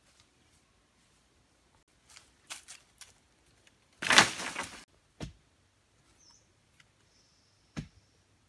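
Leafy branches rustling and snapping, then a loud crash of brush dropped onto leaf-litter ground about four seconds in. After that come two dull thuds of a wooden pole jabbed into the earth, and a bird chirps faintly.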